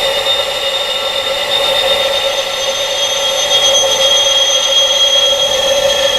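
Wind chimes blended into a continuous wash of sustained, overlapping ringing tones over a steady hiss, with no separate strikes standing out. A higher tone joins about midway. It is a tinnitus sound-therapy track with chimes tuned to the frequency of tinnitus.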